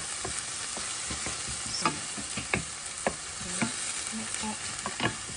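Chopped tomatoes sizzling in oil in a stainless-steel frying pan while a wooden spoon stirs them, knocking and scraping against the pan at irregular moments over a steady sizzle.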